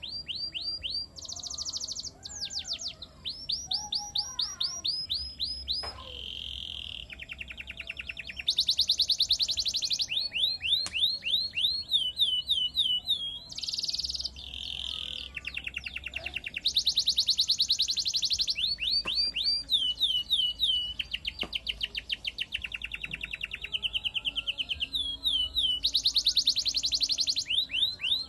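Domestic canary singing nonstop: a long song made of rapid trills, each a fast run of identical high notes, switching to a new trill every second or two.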